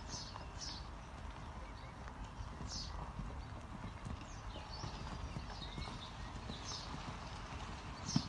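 Hoofbeats of a stallion cantering on a sand arena, a soft, repeated thudding, with one louder thump near the end. High chirps, likely birds, come and go in the background.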